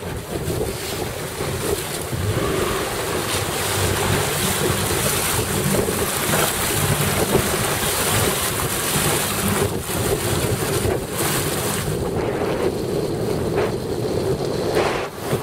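Wind buffeting the microphone over choppy sea water, with a steady low hum underneath.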